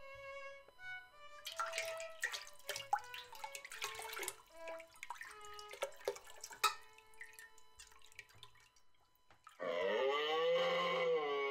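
Water sound effects of dripping and splashing in a shower: short plinking drops and clicks, after the last notes of a tune fade at the start. Near the end comes a loud, long moaning call that rises then falls in pitch, like a moose.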